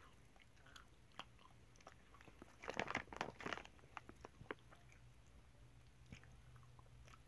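Faint chewing of chewy dried banana bites: wet mouth clicks and smacks, with a short, louder cluster about three seconds in.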